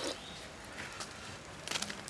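Charcoal embers under a spit-roasting duck crackling faintly, with a few sharp pops and clicks in the last part.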